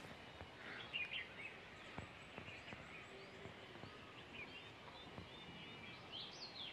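Faint chirping of small birds, short high calls repeated at intervals, over a low steady background hiss, with a couple of soft clicks about two seconds in.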